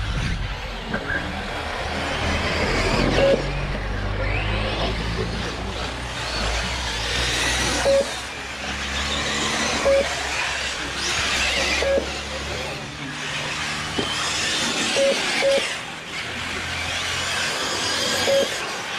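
Radio-controlled model cars racing, their motors whining up and down in pitch as they speed up and slow down, with short single-pitch electronic beeps every couple of seconds, typical of a lap-counting system registering cars crossing the line.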